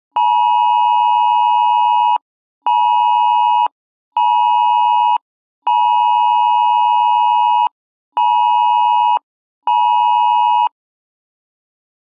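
Electronic emergency alert tone sounding as six steady beeps in a repeating pattern: one long, two short, then one long, two short.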